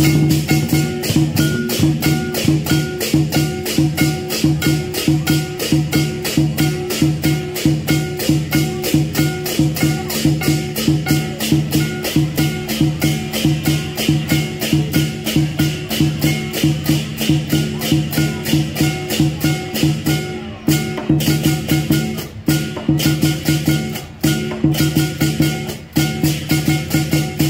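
Lion dance percussion: drum with clashing cymbals beating a fast, steady rhythm, broken by a few short pauses near the end.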